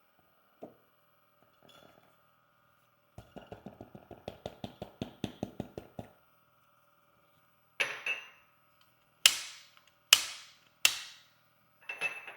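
Retained grounds being knocked out of a Turin DF83V espresso grinder: a quick run of about twenty light taps over three seconds, then five sharp metallic knocks, each with a short ringing tail.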